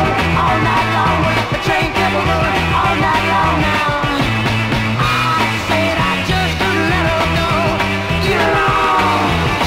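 Fast 1967 garage-rock single with fuzz guitar, bass and drums, played from a vinyl 45. A run of pitch falls near the end.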